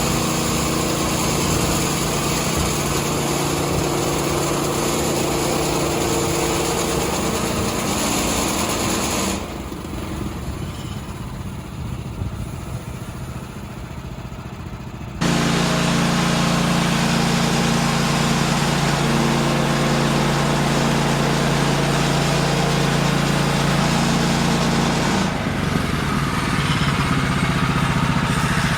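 Woodland Mills HM126 portable bandsaw sawmill running under power, its gas engine driving the band blade through a utility pole. The sound drops quieter for about six seconds around nine seconds in, then comes back at full level.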